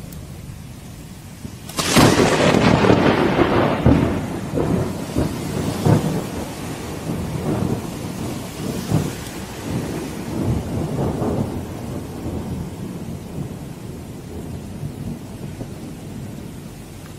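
Thunder from a close lightning strike: a sudden sharp crack about two seconds in, then crackling, rolling thunder that fades over the next ten seconds or so. Heavy rain falls steadily underneath.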